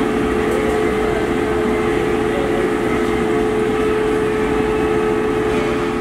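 Workshop machinery running with a steady hum and one constant whining tone throughout.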